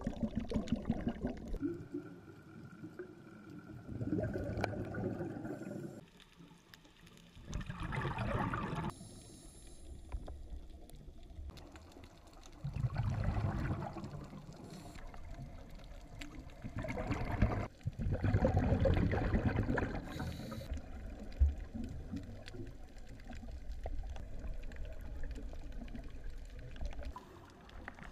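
Underwater breathing through a scuba regulator: bubbly rushes of exhaled air about every four to five seconds, with quieter stretches between breaths.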